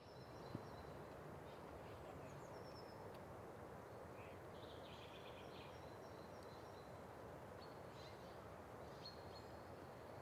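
Quiet forest ambience: a steady faint hiss with small songbirds chirping and trilling here and there, high and faint. A single soft click about half a second in.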